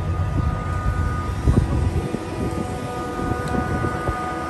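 Tram running with a steady electrical whine of several held tones over a low rumble, with a few dull knocks about a second and a half in.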